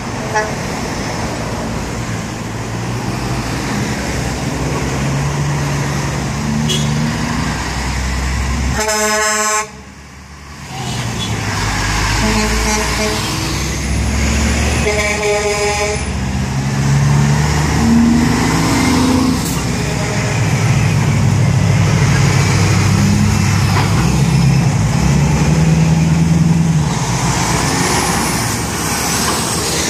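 Heavy trucks' diesel engines running and pulling through a roundabout, with truck air horns sounded three times: a loud blast about nine seconds in, a weaker one around twelve seconds and another around fifteen seconds.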